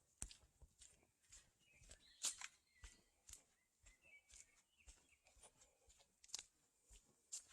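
Faint footsteps of someone walking barefoot on a dirt forest road, a soft step about every two-thirds of a second with small crunches, under faint bird calls.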